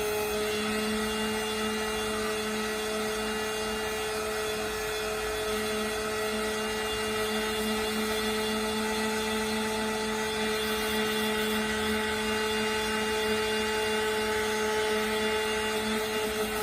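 Electric power sander running steadily with 80-grit paper: an even motor hum with a hiss over it.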